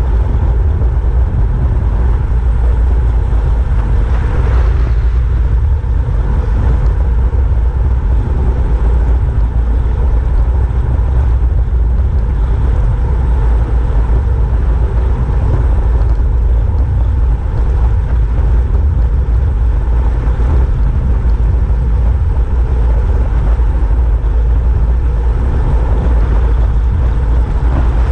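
Wind on the microphone of a handlebar-mounted camera on a road bike descending at about 50 km/h: a loud, steady, deep rumble, with rushing road noise over it.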